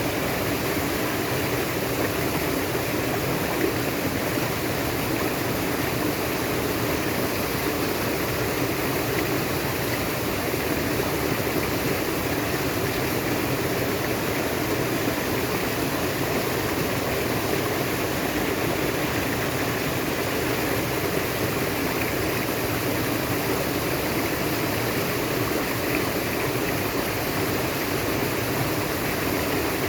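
Water flowing steadily in a natural stream, an even rushing sound that does not change.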